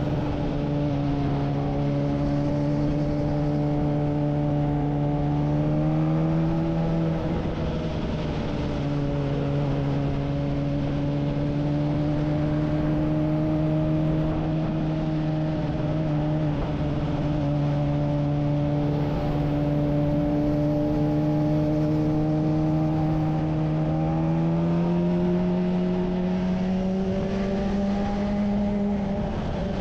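Kawasaki Ninja ZX-25R's 250 cc four-cylinder engine running at a steady cruise under a constant rush of noise. Its note rises a little about six seconds in, dips back, and climbs again in the last few seconds.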